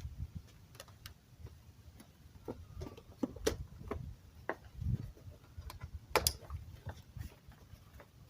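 Scattered light clicks and taps of hand handling, irregular and faint, as the fuse box is opened and the EFI fuse is pulled to disable the injection before a compression test.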